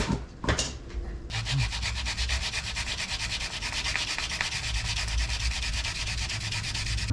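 Coarse sandpaper rubbed fast back and forth by hand over the kerb-damaged edge of an alloy wheel rim. It starts with a few separate strokes, then settles into steady rapid scrubbing from about a second in.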